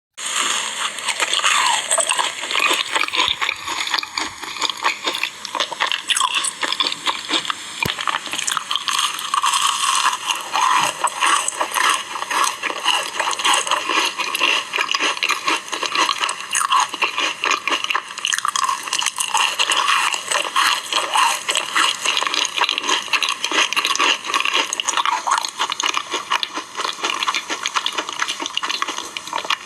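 Close-miked eating of jelly and biscuits: continuous wet squishing and mouth smacking mixed with crisp crunching and chewing, starting abruptly.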